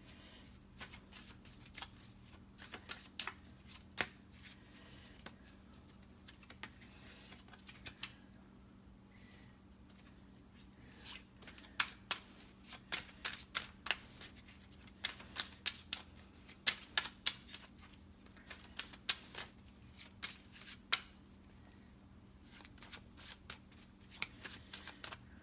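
A tarot deck being shuffled by hand: quick, light card flicks and snaps coming in spells, with short pauses between.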